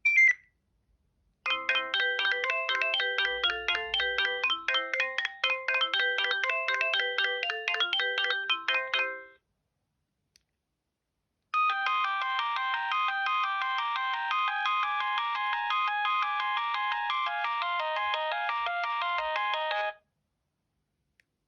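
Alcatel OT 715 mobile phone playing its built-in ringtones. The end of one tune stops right at the start. Two different melodies follow, each about eight seconds long with several notes sounding together, with a short pause between them.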